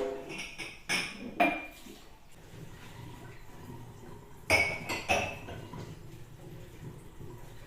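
Dishes clinking and knocking together as they are handled, in short clatters with a brief ring: three in the first second and a half, and two more about halfway through.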